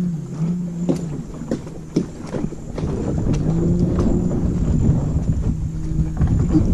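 Small aluminium boat hull being dragged over a dirt track: a grinding scrape with a low, wavering groan, broken by scattered knocks. The scraping grows denser and louder from about three seconds in.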